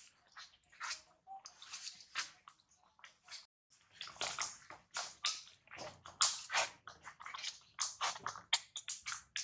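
Long-tailed macaques' wet mouth sounds, chewing and smacking: an irregular run of short soft clicks and smacks, sparse at first and coming thick and fast from about four seconds in.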